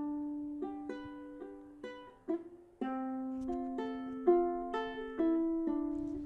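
Solo ukulele background music: single plucked notes of a slow melody, each ringing out and fading.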